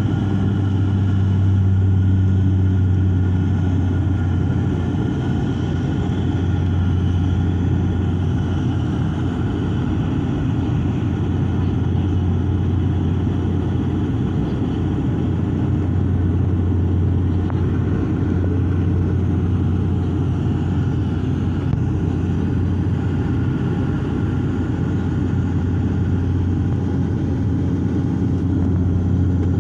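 Cabin noise of a high-wing turboprop airliner in cruise: a steady deep drone with a strong low hum and fainter higher tones, heard from inside the cabin.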